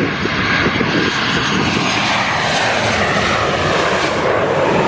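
Arriving airliner passing low overhead on its landing approach, a loud, steady engine rush.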